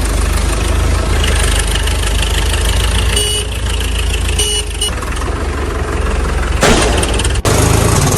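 Heavy vehicle engine running steadily, with a louder, rougher stretch about seven seconds in and a brief dropout just after.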